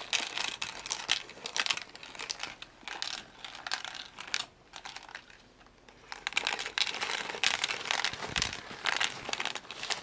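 Rapid, irregular clicking and rattling of hard-shelled M&M candies tumbling inside the plastic drum of a toy cement-mixer truck as it is turned and handled, with a short lull about halfway through.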